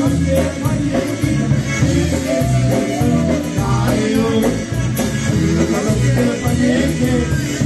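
Live polka band playing a song with a steady bass beat and a voice singing over it.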